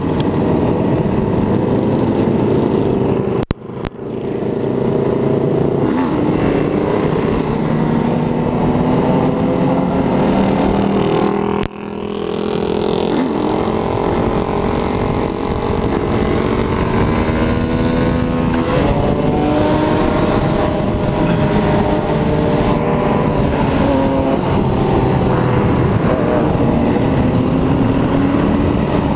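Yamaha dual-sport motorcycle engine running at road speed, its pitch rising and falling with the throttle, over rushing wind noise. The sound drops away sharply and briefly twice, a few seconds in and about twelve seconds in.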